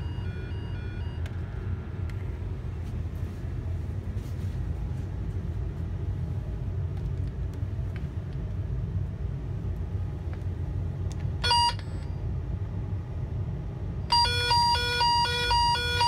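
Network cable tracing probe sounding the tone generator's signal as a loud warble, switching between a low and a high pitch about three times a second near the end, after one brief chirp of it about two-thirds of the way in. The tone means the probe is near the cable carrying the toner's signal. A steady low rumble runs underneath throughout.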